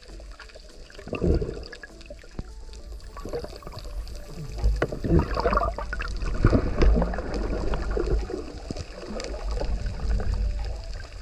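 Underwater recording: water gurgling and bubbling around the camera over a low rumble, in irregular bursts that grow louder about four seconds in.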